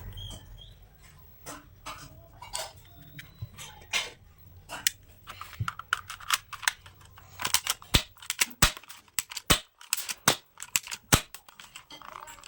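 Sharp plastic clicks and snaps from a toy airsoft gun, irregularly spaced and coming thicker from about halfway on.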